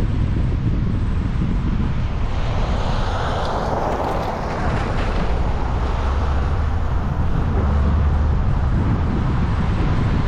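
Wind buffeting the microphone in a steady low rumble, with a vehicle passing by that swells and fades between about three and six seconds in.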